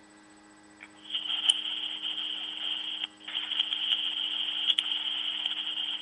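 Voicemail played back through a small phone speaker: thin, scratchy rustling noise in two long stretches with a short break, with a couple of sharp clicks. The caller's phone is still recording while it rubs or is handled, the call not ended.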